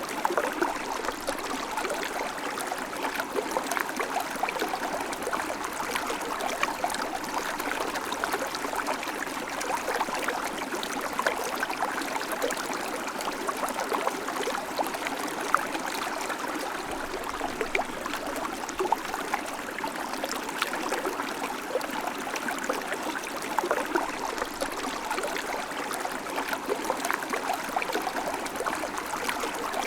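River water flowing steadily, a continuous rushing babble with small splashes and trickles throughout.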